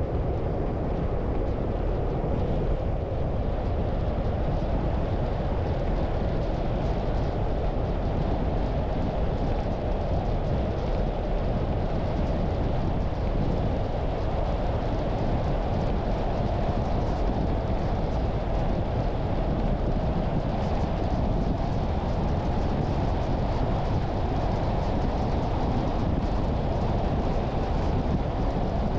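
A car driving at a steady speed, its tyre and road noise a low, even rumble with some wind noise mixed in.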